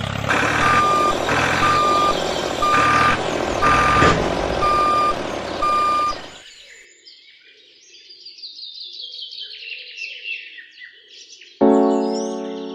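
Vehicle reversing alarm beeping about once a second over loud engine and running noise; it stops about six seconds in. Birds chirp after it, and music begins near the end.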